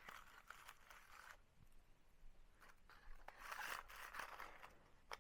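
Faint crinkling and rustling of the paper-cone packaging being handled, with a few light clicks; the loudest rustle comes a little past the middle.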